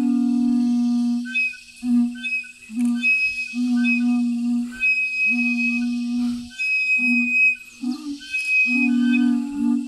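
A flute-like wind instrument playing a melody of held notes, phrase after phrase with short breaks between them, as music for a traditional dance.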